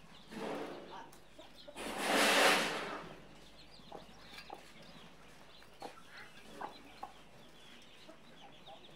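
A mother hen clucking softly while her small chicks peep in short, high chirps. A brief, loud rushing noise comes about two seconds in.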